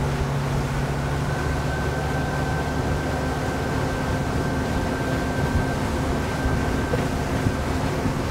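Twin outboard engines running under way as the boat is brought up to cruising speed, with steady wind and water rush. A thin, steady high whine comes in about a second in.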